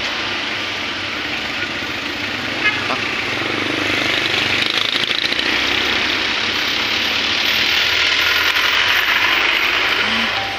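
Heavy vehicle engine noise, growing louder about four seconds in, with a brief click near three seconds.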